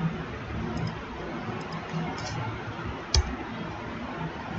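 Computer mouse clicks: a few faint ones, then one sharper click with a low knock about three seconds in, over a steady background hiss.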